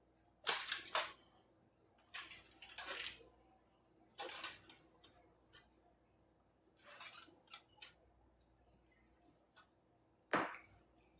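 Chunks of compressed cornstarch being broken apart and handled: several short, crumbly crackling bursts with quiet gaps between them.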